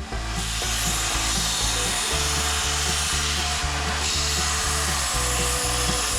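A power tool cutting or shaping a hickory axe-handle blank: a steady rasping noise that eases briefly about four seconds in. Background music plays underneath.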